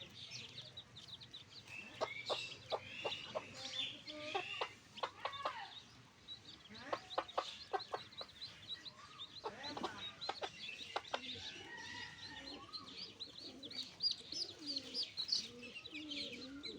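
Backyard chickens clucking, with many short sharp clicks and high bird chirps throughout.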